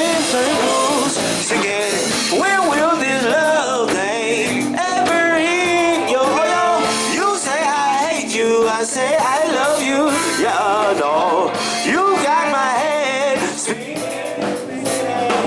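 Live band playing funk-rock with singing or a wavering lead melody over guitar and drums.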